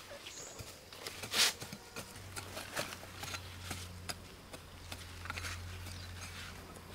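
Small hand hoe chopping and scraping into dry garden soil: a run of short knocks and scrapes, the loudest scrape about one and a half seconds in. A low steady hum comes in about two seconds in.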